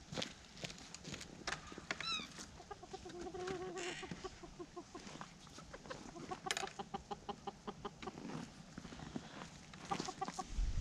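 A flock of chickens clucking, with a falling squawk about two seconds in, a drawn-out call a second later and a run of quick clucks midway, among scattered short clicks.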